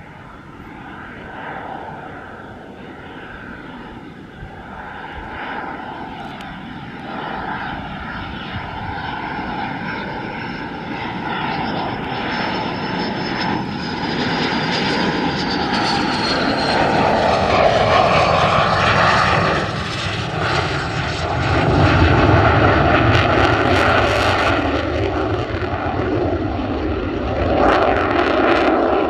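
BAE Hawk T2 jet trainer's Rolls-Royce Adour turbofan on a low approach, growing steadily louder as it nears. A high whine falls in pitch as it passes, and the jet noise is loudest in the second half as it goes by and climbs away.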